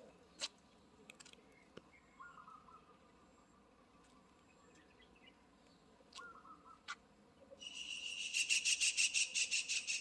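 An insect call starting about three quarters of the way in: a loud, fast-pulsing high buzz of several pulses a second. Before it there are only a few faint chirps and clicks.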